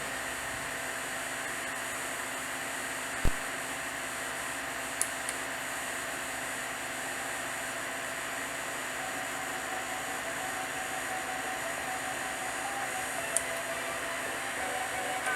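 Steady hiss of background noise, with a single low thump about three seconds in and a couple of faint clicks later.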